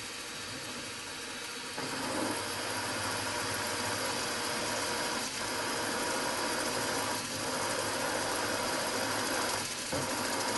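Milling machine spindle running, then from about two seconds in a piloted counterbore cutter feeding down into a metal plate, cutting a counterbore for an M5 bolt. The cutting noise is steady and dips briefly three times.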